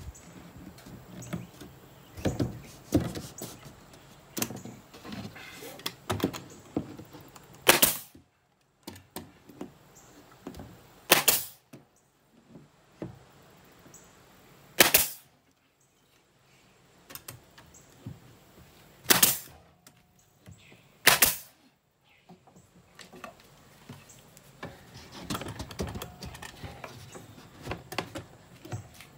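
Pneumatic nail gun firing nails into plywood: five sharp shots a few seconds apart, with lighter knocks in between.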